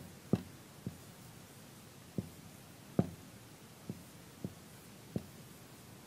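Faint, irregular soft knocks and taps, about seven in six seconds, over quiet room tone.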